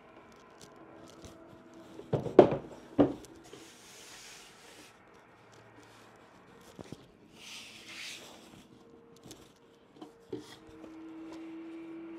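Laminated particleboard desk panels being handled and fitted together by hand: two sharp knocks of board on board about two seconds in, then rubbing and sliding of the panels. A steady hum starts near the end.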